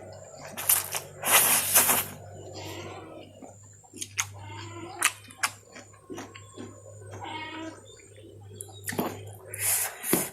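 Close-miked eating of chow mein noodles: two loud slurps in the first two seconds, then wet mouth clicks and chewing, and another slurp near the end.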